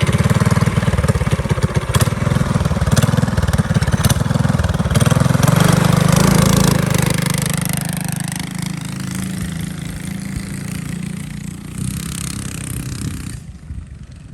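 A small engine running, with a fast, even firing pulse. It is loudest for the first half, drops to a lower level, then cuts off suddenly near the end.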